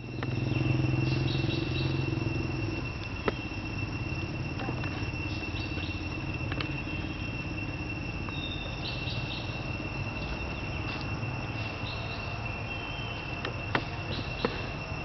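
Insects droning steadily on one high note, with short higher chirps, over a low background rumble. A few sharp clicks stand out, the loudest near the end.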